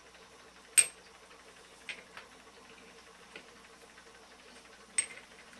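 Sharp metallic clicks as a slotted metal end cap is fitted onto a turbomolecular pump's housing: one loud click about a second in, a few fainter taps, and another sharp click near the end.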